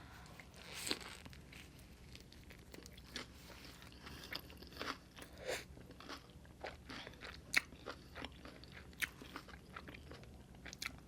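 Close-miked chewing of a mouthful of burrito, with soft, irregular crunches and wet mouth clicks.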